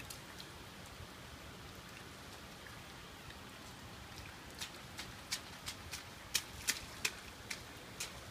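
Light rain falling steadily on wet pavement and grass. From about halfway through, scattered sharp taps of drops and small splashes come in, roughly one or two a second.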